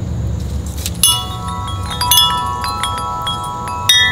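Tubular metal wind chimes stirred by the wind, several clear tones ringing and overlapping, with fresh strikes about a second in, about two seconds in and near the end, over a low steady rumble.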